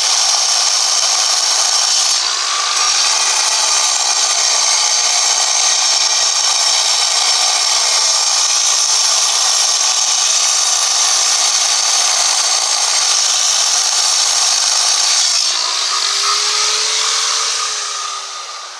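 Large angle grinder cutting into stone, a loud steady grinding. Near the end it comes off the stone and the motor's whine falls in pitch as it winds down.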